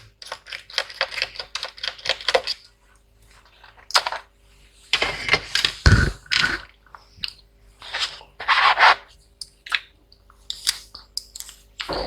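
Clicking and scraping of small metal and plastic parts as a laptop's heatsink and CPU are worked off the motherboard by hand: a quick run of clicks at first, rustling scrapes in the middle with one dull knock, and scattered clicks near the end.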